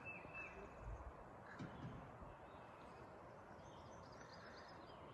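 Faint outdoor ambience: a low steady hiss with a few faint, distant bird chirps in the later part.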